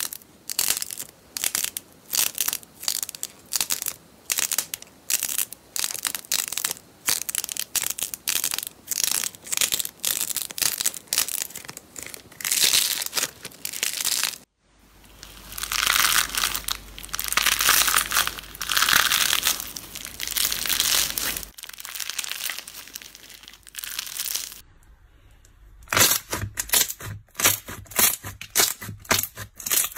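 Slime and soft clay being squeezed and kneaded by hand, giving rapid crisp crackles and pops.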